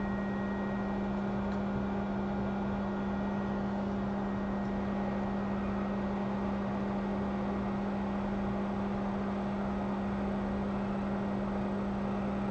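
Steady low hum with an even whir from running microsoldering bench equipment, unchanging throughout.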